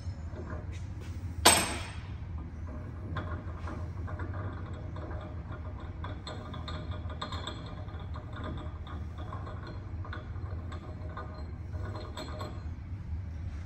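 Left-hand Acme tap being turned out by hand from a lathe tailstock quill's brass feed nut after chasing its threads: faint, irregular scraping and clicking of metal threads over a steady low shop hum, with one loud sharp clink about a second and a half in.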